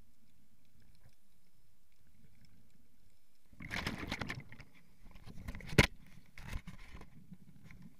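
Faint low underwater rumble, then from about three and a half seconds in, water sloshing and splashing with scattered sharp clicks and knocks, the loudest a sharp knock near six seconds in.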